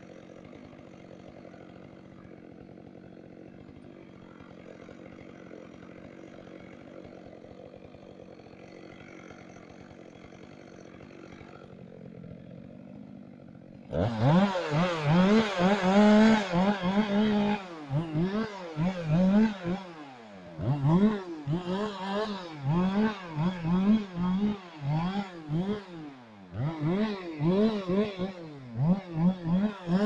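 Chainsaw idling faintly, then from about halfway revved hard and let off again and again in quick surges, typical of limbing branches off a felled tree.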